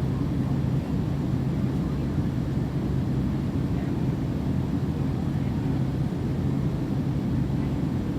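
Airliner cabin noise: a steady low rumble of engine and airflow with a constant low hum.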